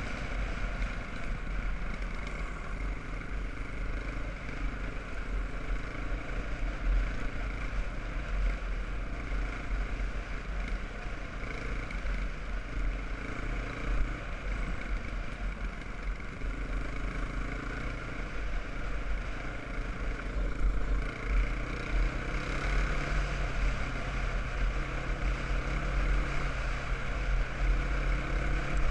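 Sport quad's single-cylinder four-stroke engine running steadily at cruising pace, picking up a little about two-thirds of the way through, with wind buffeting the mounted camera's microphone.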